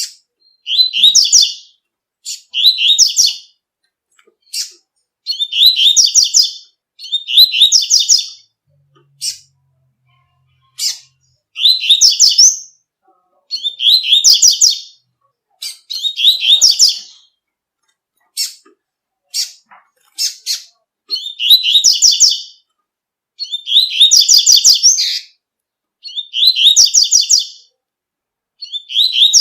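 Double-collared seedeater (coleiro) singing its 'tui-tui' song: phrases of about a second made of rapid high notes, repeated every one to two seconds, with short single sharp notes between the phrases.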